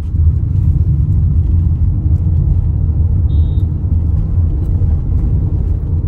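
Steady low rumble of a car driving along at speed, heard from inside the car: road and wind noise. A brief high beep sounds a little past three seconds in.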